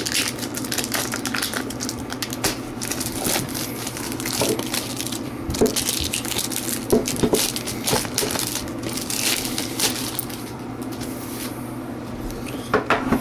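Plastic shrink wrap crinkling and crackling in irregular bursts as it is torn and peeled off a metal trading-card tin.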